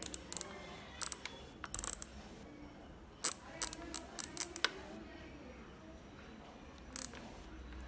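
Temperature dial of a Morphy Richards Super Glide steam iron being turned by hand: sharp plastic clicks in short bunches, with a quick run of about seven clicks around three to four seconds in and a single click near the end.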